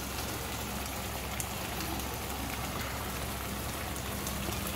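Hot chilli-soy sauce sizzling steadily in a pan on the stove as fried chicken wings are dropped into it, with a few faint ticks.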